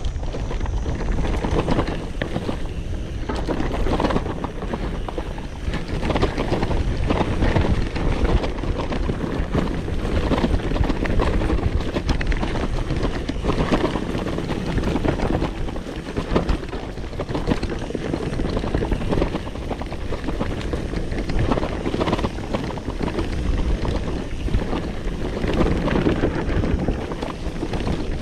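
Mountain bike descending a rough downhill trail: wind buffeting the microphone over a constant clatter of tyres and frame jolting across the dirt.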